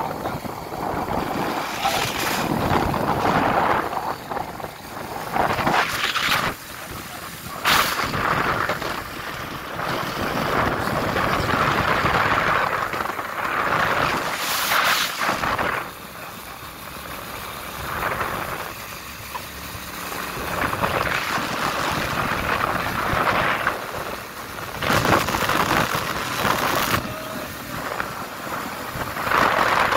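Wind rushing over the phone's microphone on a moving motorcycle, in gusts that swell and fade every few seconds, with a few sharp buffeting thumps and vehicle road noise underneath.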